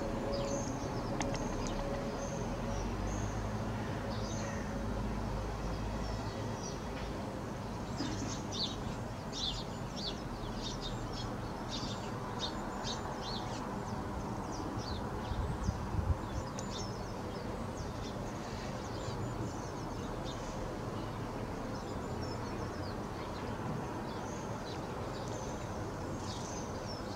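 Birds chirping in quick runs of short, high notes, busiest about a third of the way in, over a steady outdoor background noise with some low rumble in the first few seconds.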